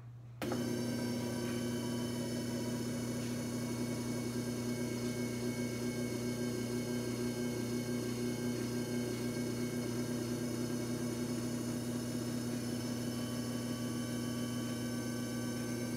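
JFJ Easy Pro disc repair machine's motor starting about half a second in and then running with a steady hum, spinning a scratched DVD against its soft sanding pad to resurface it.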